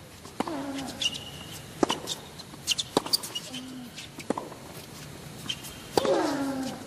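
Tennis rally on a hard court: racquets striking the ball about every second and a half, with players grunting as they hit and short sneaker squeaks on the court surface.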